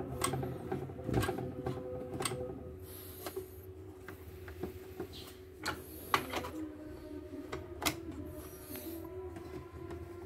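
Scattered, irregular clicks and light knocks from a CNY portable embroidery machine being handled and worked on, over a faint steady hum.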